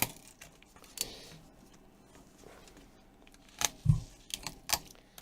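Sharp clicks and small cracking snaps as a cracked tablet glass screen is pried off its adhesive along the plastic frame. There are scattered single snaps early on and a quick cluster of them around four seconds in.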